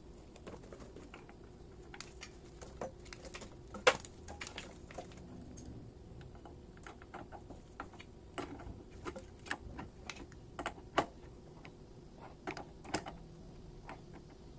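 Irregular clicks and clinks of brass gas fittings, hose and hand tools being handled and fitted together, with a sharp knock about four seconds in and another about eleven seconds in.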